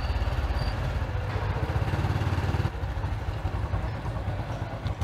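A small single-cylinder underbone motorbike engine running as the bike is ridden at low speed, with a steady, even firing pulse. About three seconds in it drops to a quieter, lower-level run as the bike rolls up to a stop.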